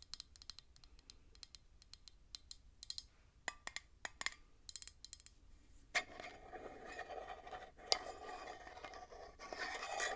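Fingernails tapping and clicking on a candle jar: many quick, separate taps, then about four seconds of continuous scratchy rustling and scraping as the candle is handled and opened.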